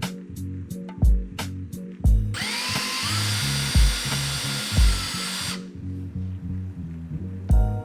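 Power drill running for about three seconds, rising in pitch as it spins up and then holding steady, over background music with a steady beat.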